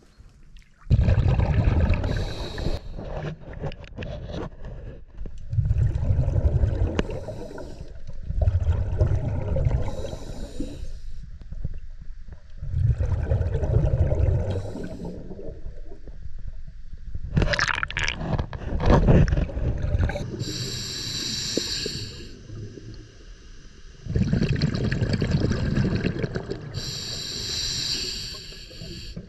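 Scuba diver breathing through a regulator underwater: short hissing inhalations alternate with gurgling rushes of exhaled bubbles, repeating every few seconds.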